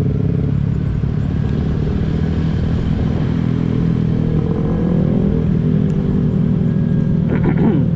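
Honda PCX150 scooter's engine running while riding, its pitch rising as it picks up speed about halfway through.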